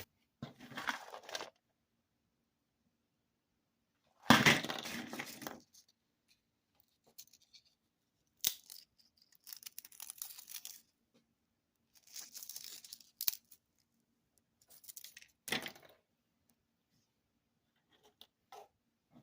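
A snack bag of fried pork skins being torn open and rustled, in several separate noisy bursts; the loudest comes about four seconds in.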